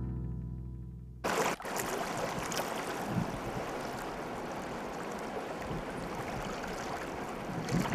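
The last guitar chord of a song fades out; about a second in it cuts suddenly to small wind-driven waves lapping and splashing right at the microphone, with wind buffeting it near the end.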